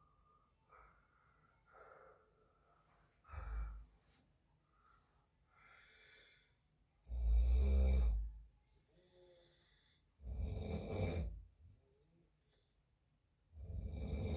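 A man snoring in his sleep: four snores every three to four seconds, the loudest about seven seconds in, with fainter breaths between.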